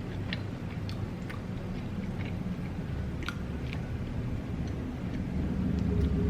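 Close-miked chewing of food, with scattered wet mouth clicks and smacks. A low rumble runs underneath and grows louder near the end.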